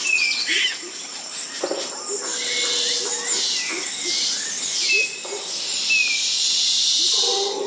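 Outdoor natural ambience: short falling whistled bird calls, repeated a few times, over a dense high-pitched hiss that starts about two seconds in and carries on, typical of insects.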